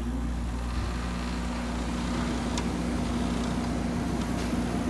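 1986 Friedrich Quietmaster 19,000 BTU air conditioner running just after being switched on, its compressor and fan giving a steady, even hum with a low tone.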